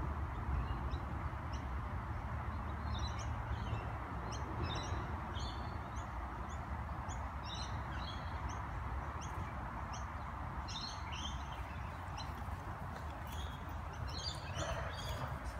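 Small birds chirping in short, repeated high calls over a steady low background rumble.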